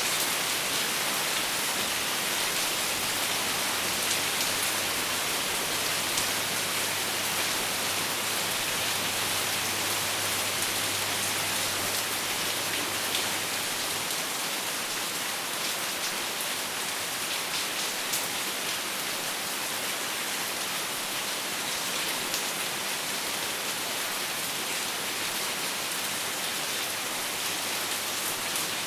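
Steady rain falling on a hard surface: an even hiss with scattered sharper drop ticks. A faint low hum sits under it for the first half.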